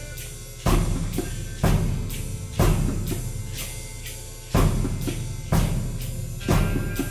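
Free experimental music with a slow drum-kit beat: a heavy hit with bass drum roughly once a second, lighter strokes in between, over a few sustained tones.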